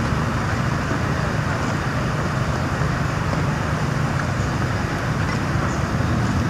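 Steady low hum of idling vehicle engines under a constant hiss, unchanging throughout.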